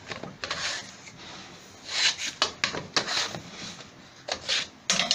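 Plastic cartridge filter housing being unscrewed from its head with a filter spanner. It gives several short rubbing, scraping sounds of plastic on plastic as the housing is turned in jerks.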